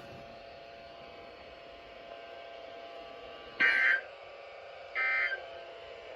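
Low steady electrical hum from the weather radio receiving gear once the broadcast has ended, then two short electronic buzzer beeps about a second and a half apart in the second half.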